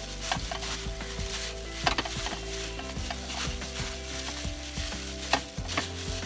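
Kitchen food-preparation sounds: a steady hiss with light taps and scrapes while raw cube steaks are dredged in flour, and two sharper knocks, about two seconds in and near the end.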